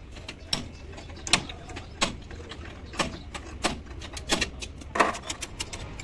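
Irregular metallic clinks and knocks, about one a second, of hand tools and parts being handled at a heavy truck's rear wheel hub.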